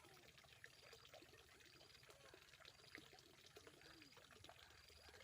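Faint trickling, pouring water with many small gurgles. A short high chirp recurs about once a second.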